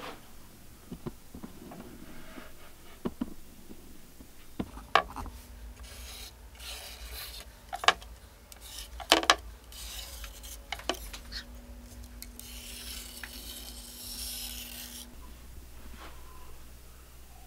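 A marker scratching along a sassafras board while a paddle's outline is traced onto it, in short strokes and one longer stroke near the end. A few sharp knocks come about halfway through.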